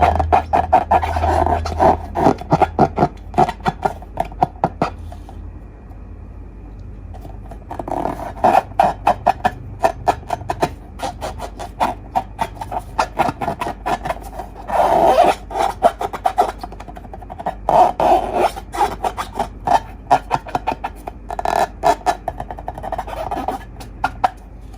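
Slime being squeezed and worked by hand: rapid runs of wet clicks and crackling pops, coming in spells with a lull of a few seconds between them.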